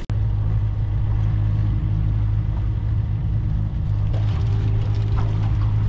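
Mercury 60 hp outboard motor running steadily at an even low hum.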